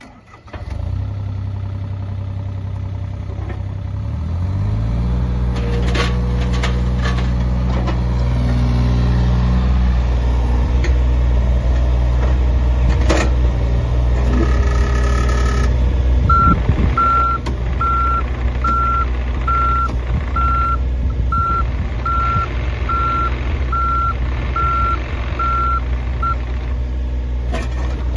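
Deere 35G mini excavator's diesel engine running, its pitch rising about four seconds in as the throttle is raised, then holding steady. In the second half a travel alarm beeps evenly about once a second for around ten seconds while the machine moves, with a few knocks now and then.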